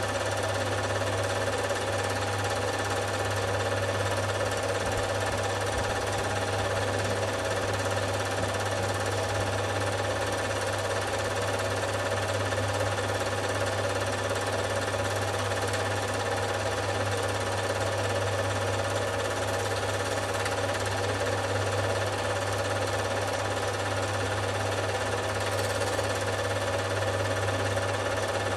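Film projector running: a steady mechanical whirr with a rapid rattle from the film transport, unchanged throughout.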